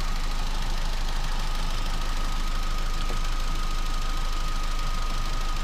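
Vauxhall Astra 1.4 petrol engine idling steadily with a thin constant whine over it, running on a freshly fitted timing chain kit.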